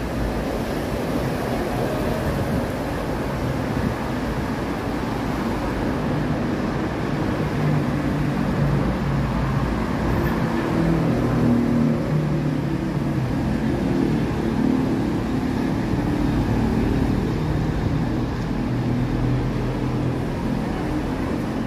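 Steady city road traffic noise, a continuous hum of passing vehicles.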